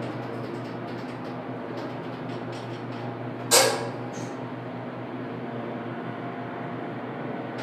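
Westinghouse hydraulic elevator running, heard from inside the cab: a steady low hum with one sharp clunk about three and a half seconds in.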